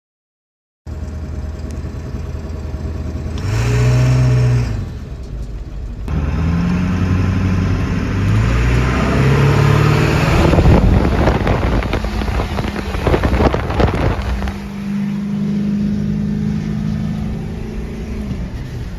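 Ford 7.3-litre Powerstroke V8 turbo-diesel in a 2002 F250 pickup: the sound starts about a second in, the engine revs up and back down about four seconds in, then runs louder and rougher for several seconds before settling to a steadier, lower note.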